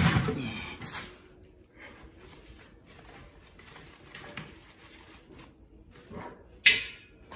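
Handling sounds as a large exhaust stack section in a protective wrap is set in place: a knock at the start, faint rustling of the wrap, and a short, sharp rustle or scrape near the end.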